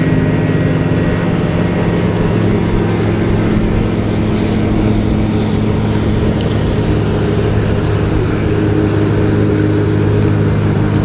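A vehicle engine running at a steady speed, a low, even hum that holds without change.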